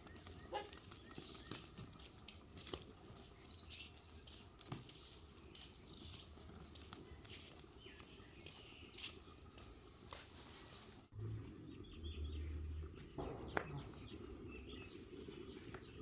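Faint outdoor farmyard background with scattered short bird chirps and clicks. About eleven seconds in the sound changes abruptly, and a few low thumps follow.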